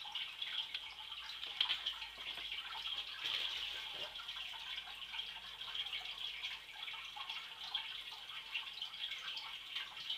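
Hands rummaging through aspen wood shavings and shifting a hide box in a plastic reptile tub: soft scattered rustling and crackling over a steady background hiss.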